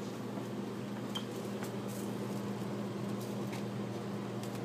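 Steady low mechanical hum, with a few faint, short taps or clicks scattered through it.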